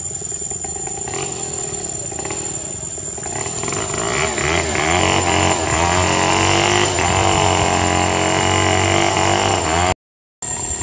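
A motor engine running, growing louder about a third of the way in with its pitch wavering, then cut off abruptly near the end.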